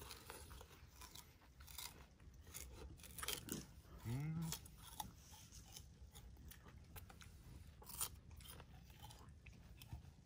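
Faint crunching and chewing on fresh sugar cane, a scatter of short crisp crunches. About four seconds in, a short low hum of a voice rises briefly.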